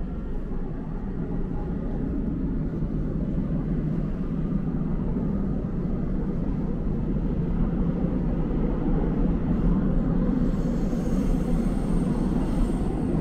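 Seoul Subway Line 2 train (new-type car) running, heard from inside the carriage: a steady low rumble that grows a little louder, with a faint high hiss added, about three-quarters of the way through.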